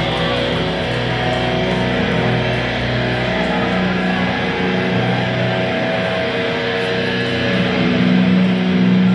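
Live heavy metal band playing loud through a club PA, led by electric guitars holding long ringing notes that change every second or so.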